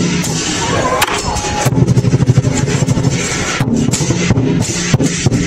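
Lion dance percussion: a big drum beaten rapidly with crashing cymbals and gong, playing continuously to drive the dancing lions.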